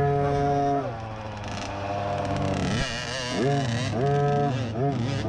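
Small 50cc dirt bike engine revving in throttle blips at walking pace: one rev held for about a second at the start, then it falls back, followed by several short quick blips near the end.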